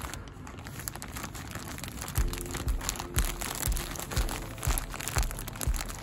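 Clear plastic zip-lock bag crinkling as hands squeeze and fold it, the bag holding damp compost. Background music with a steady beat of about two thumps a second comes in about two seconds in.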